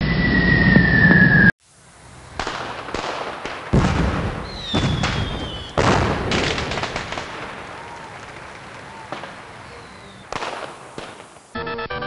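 Fireworks sound effect: a short descending whistle, then after a brief break a string of sharp bangs and crackles with a falling whistle among them, fading out gradually. Electronic music starts near the end.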